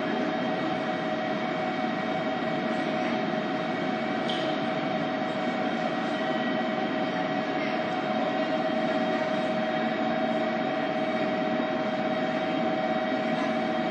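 Railway platform ambience: a train standing at the platform hums steadily, with two close, unchanging tones over a constant rushing noise and a faint click about four seconds in.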